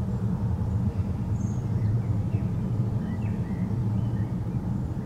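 Deep, steady rumble of a jet airliner's engines climbing away overhead, with faint bird chirps now and then.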